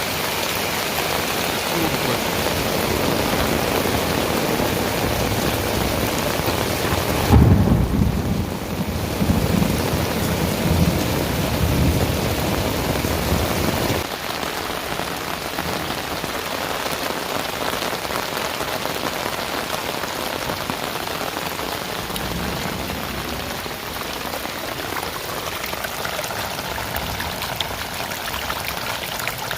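Heavy rain falling steadily, with a loud low rumble of thunder starting about seven seconds in and lasting several seconds.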